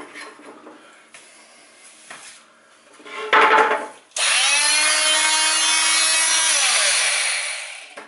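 Parkside PMVW 310D2 corded oscillating multi-tool switched on about halfway through, running at a steady high pitch for a couple of seconds, then switched off and winding down with a falling pitch.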